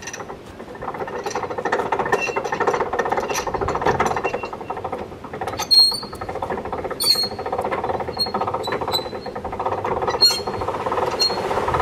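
Hand-cranked gear winch on a canal lock gate being turned, its gears clicking rapidly and steadily, with a few sharp metallic clanks and short high squeaks, as the sluices are opened to fill the lock.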